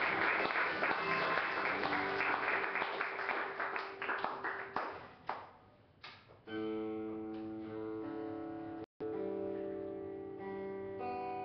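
Audience applause dying away over the first five seconds or so. Then, about six and a half seconds in, an acoustic guitar starts playing ringing, sustained chords. The sound cuts out for an instant about nine seconds in.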